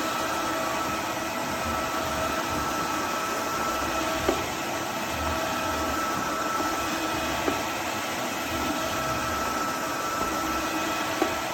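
Roborock F25 ACE cordless wet-dry vacuum mop running steadily, its motor giving an even whine over a rushing of air, with a few light clicks.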